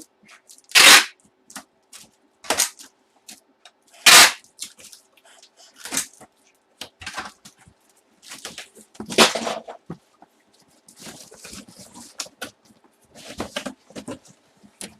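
Handling and opening of cardboard and plastic packaging: irregular rustling and crinkling with three loud, sharp rips about a second in, about four seconds in and about nine seconds in.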